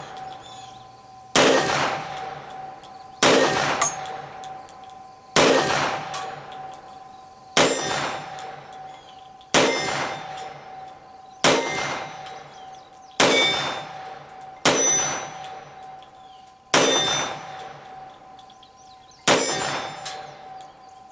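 Rock Island Armory XTM-22 semi-auto pistol firing .22 Magnum rounds in slow fire, about ten shots roughly two seconds apart. Each shot is followed by a steel target clanging and ringing on as a steady tone that fades slowly.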